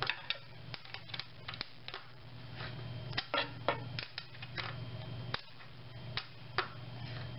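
Irregular small metal clicks and ticks of a hand-turned ball-head Allen wrench working a bolt loose on a crib's mattress support, over a low steady hum.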